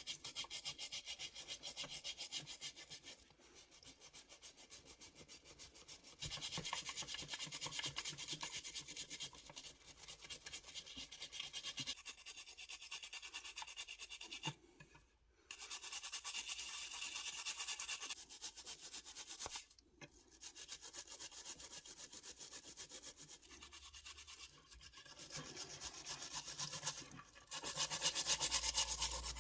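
Quick back-and-forth hand rubbing strokes on a small 1:24 diecast model car part, in several runs broken by short pauses.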